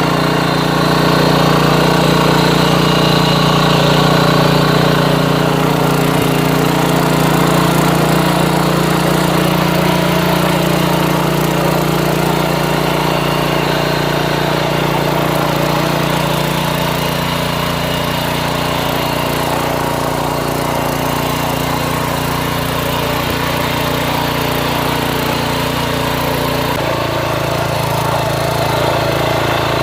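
Mini tiller's small engine running steadily, its note changing abruptly near the end.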